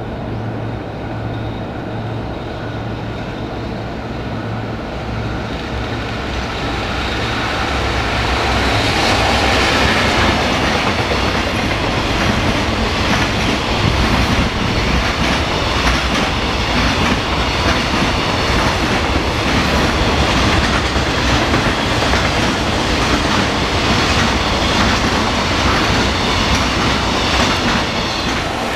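A container freight train hauled by a JNR Class EF65 electric locomotive passes through a station without stopping. It grows louder from about seven seconds in, and a long run of container wagons then goes by close up with a steady rumble and rapid clickety-clack of wheels over the rail joints.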